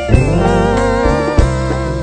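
Band playing the instrumental close of a romantic song: electric guitar and bass over congas and keyboard, with held, wavering melody notes.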